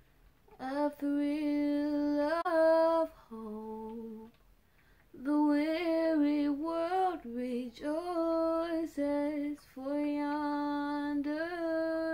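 A woman singing alone, without accompaniment, in long held notes that slide up and down, in phrases broken by short pauses, with a lower hummed note between phrases.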